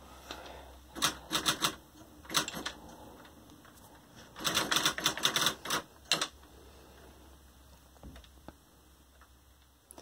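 Xerox 6010 Memorywriter electronic typewriter printing as keys are typed: quick runs of sharp daisy-wheel strikes in several bursts, the longest about four seconds in, falling away to a few faint ticks after about six seconds.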